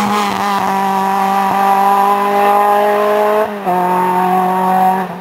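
Race-prepared Renault Clio's engine running hard at high revs as it drives up a hill-climb course, its pitch nearly steady and stepping down slightly about three and a half seconds in. The engine sound stops abruptly at the very end.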